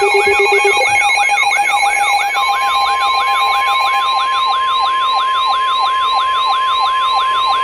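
Weather-radio emergency alert alarms: a siren-like alarm of rapid falling sweeps, about three and a half a second, joined about two and a half seconds in by a steady 1050 Hz NOAA Weather Radio warning alarm tone. This is the alert for an incoming warning broadcast.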